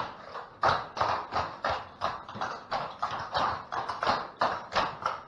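Clogging taps striking a hard floor in a steady stepping rhythm, about three sharp clacks a second.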